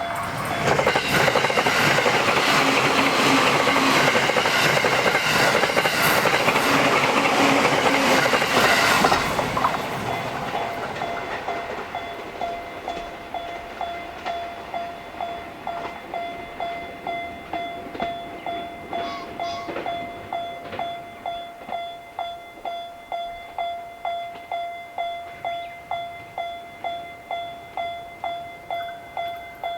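An electric train on the JR Sobu Line passes over the level crossing for about nine seconds, its wheels clacking over the rail joints, then fades away. Through it and after it, the Japanese crossing bell keeps up its steady 'kan-kan' ringing, about two strikes a second.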